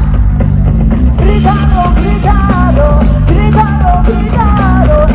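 Live pop-rock concert music through the venue's sound system: a backing track with heavy bass and women's group vocals singing, loud and close to distorting as heard from within the crowd.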